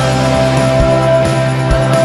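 Background music with steady held bass notes and a low drum beat about once a second.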